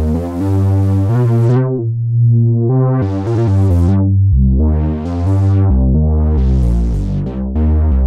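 Arturia MicroFreak synthesizer playing a noise bass patch: a line of pitched bass notes changing every fraction of a second, with a hissy noise layer on top. The hiss fades away and swells back several times as a panel knob is turned.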